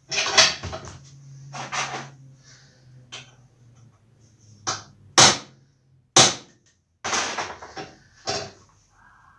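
Metalwork on a steel bolt being cut to length for a homemade brake rod: a series of short, irregular rasping strokes and sharp knocks, broken off abruptly several times.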